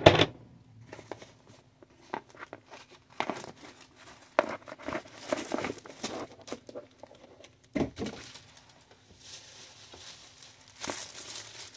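Cardboard shipping box and its paper packaging being handled and opened, crinkling and rustling in irregular bursts, with a few sharp knocks, the loudest right at the start.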